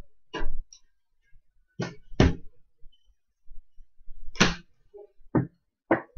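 Trading cards handled by hand: about six short swishing flicks as cards are slid off a stack one after another.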